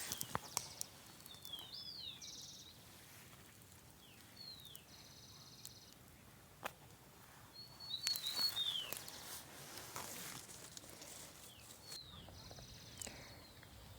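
Faint birdsong in open countryside: short curving whistled calls repeated every few seconds, with short buzzy trills between them over a soft outdoor hiss. A few light clicks sound now and then.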